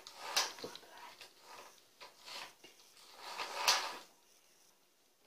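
Clear plastic packing bag rustling and crinkling as it is handled, in a few short spells, the loudest just before four seconds in.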